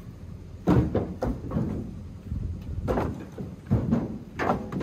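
Split firewood pieces knocking and clunking against each other as they are set and tossed onto a stacked pile. Several sharp wooden knocks come in clusters.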